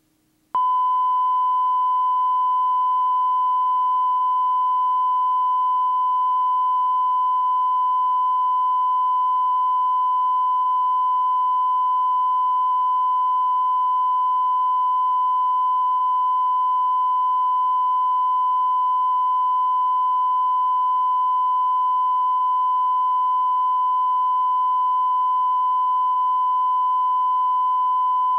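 Steady 1 kHz test tone that switches on abruptly about half a second in and then holds at one unchanging pitch, with fainter overtones.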